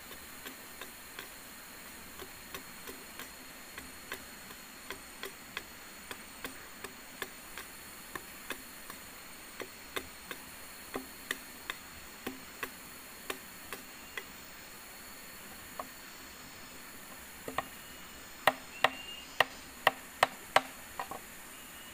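Machete blade striking green bamboo in light, irregular knocks about one or two a second, then a run of louder chops about two a second near the end as a length of bamboo pole is cut. A steady high insect buzz runs underneath.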